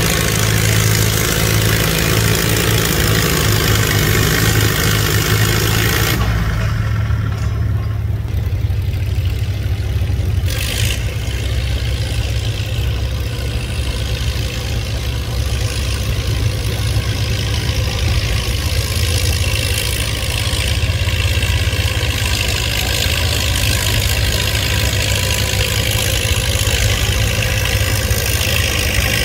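Antique farm tractor engine running at a steady low drone.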